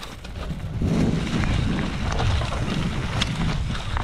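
Wind buffeting the microphone: an irregular low rumble that gets louder about a second in.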